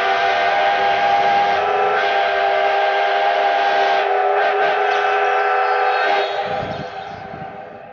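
A steam locomotive's whistle blows one long chord of several notes, then fades away near the end.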